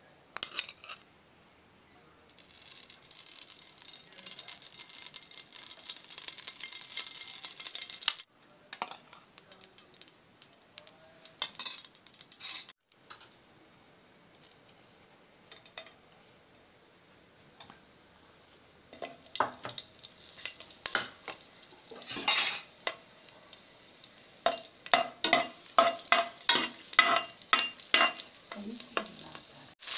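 Oil sizzling in a steel pot, then whole spices (cinnamon, cardamom, cloves) frying in it as a metal spoon stirs them. In the second half the spoon scrapes and taps against the pot over and over.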